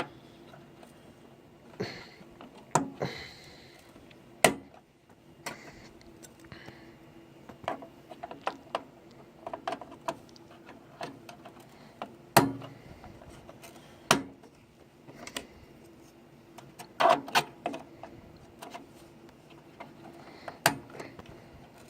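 Scattered clicks, knocks and light clatter from handling computer hardware, a sharp knock every second or two over a faint steady hum.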